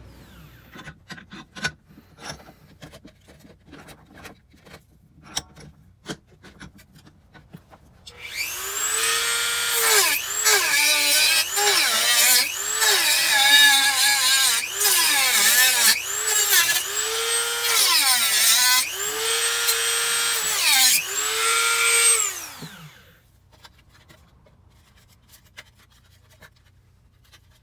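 Dremel rotary tool with a cut-off wheel cutting through a plastic droid head held in a vise. Its high motor whine starts about eight seconds in, sags in pitch each time the wheel bites and climbs back between cuts, about eight times, then stops. Before it, scattered clicks and knocks of handling.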